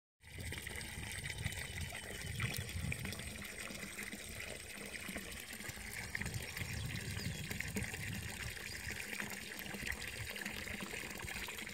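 Steady outdoor background noise: an even hiss with an uneven low rumble underneath.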